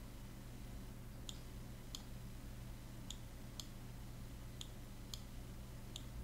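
Faint computer mouse button clicks, about seven in all, mostly in pairs about half a second apart, over a low steady hum.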